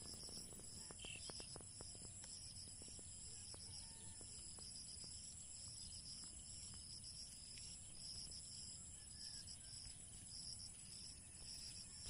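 Insects chirping faintly: a steady high-pitched trill with a pulsing chirp beneath it, and a few faint ticks in the first three seconds.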